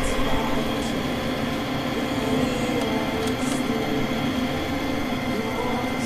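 Natural-gas furnace's draft-inducer (exhaust) fan motor running with a steady hum during start-up, ahead of ignition.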